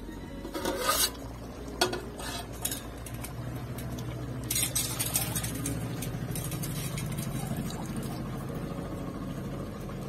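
Aluminium plate lid on a steel cooking pot clattering and scraping as it is wiped with a cloth and lifted off, with sharp metal clinks about two seconds in and a burst of clatter around five seconds in. A steady low rumble from the pot of boiling fish curry runs underneath.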